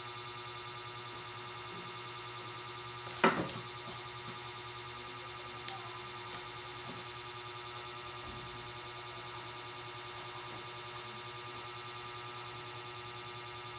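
A steady hum with several fixed tones, and one sharp click about three seconds in as the laptop and its charger plug are handled, followed by a few faint taps.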